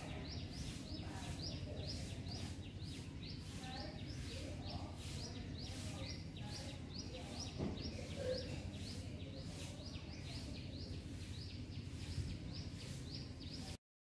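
A bird repeating a short high chirp about three times a second, over a steady low outdoor rumble; it cuts off just before the end.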